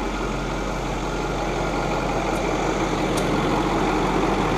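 Ford 6.4 Power Stroke twin-turbo V8 diesel idling steadily, running fine again after a fuel filter change once the fuel system was primed and the air bled from the fuel line.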